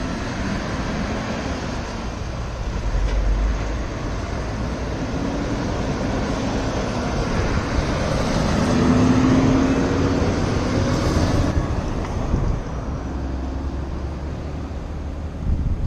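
Road traffic at a junction: a cement mixer truck drives past close by, its engine and tyres loudest about nine seconds in, over a steady traffic rumble.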